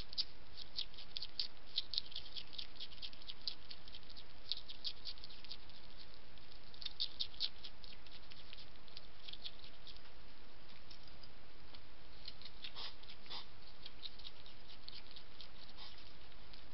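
Wild hedgehog eating dry food from a bowl: quick clusters of small crisp crunching clicks, over a steady hiss.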